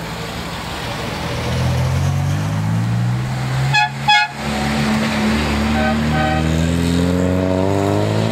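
A car horn gives two quick toots about four seconds in, then a fainter double toot two seconds later, over a classic car's engine running and rising in pitch as the car pulls away.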